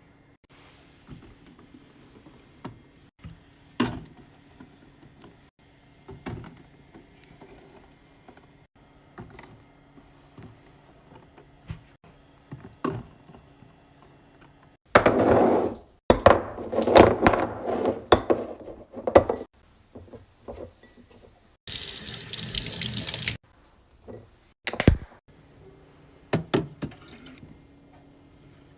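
Light taps and clicks of items being handled, then a few seconds of running or splashing water mixed with clatter, and a steady hiss lasting about a second and a half near the end.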